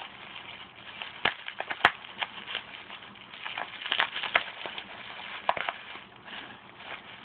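Plastic packaging, bubble wrap and packing tape, crinkling and crackling as it is pulled off by hand, with scattered sharp snaps, the sharpest just under two seconds in.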